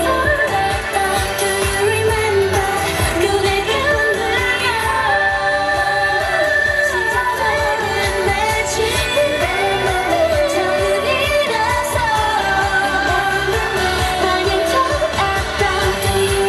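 Upbeat K-pop dance song, with the girl group's female voices singing into handheld microphones over a pop backing track with a steady beat.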